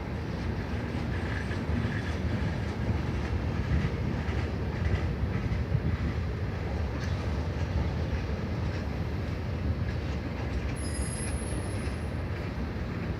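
CN freight train rolling past on the rails: a steady low rumble with wheel clatter and a faint wheel squeal in the first few seconds.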